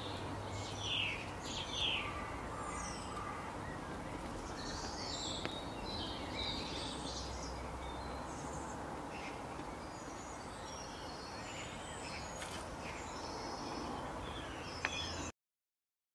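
Songbirds chirping and calling in short phrases over a steady background hiss, cutting off abruptly near the end.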